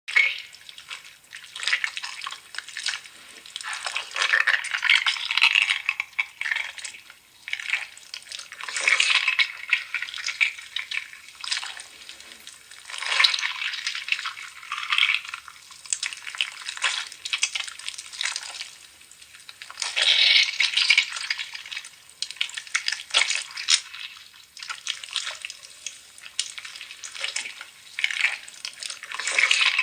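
Slime being squeezed and kneaded by hand: wet crackling and popping clicks that swell into louder bursts of a second or two every few seconds.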